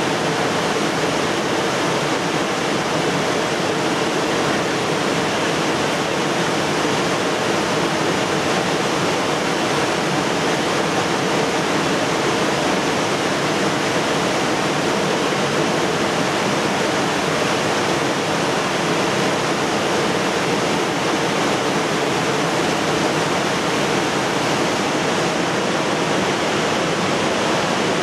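Steady, unbroken rush of a fast mountain river running through the gorge below.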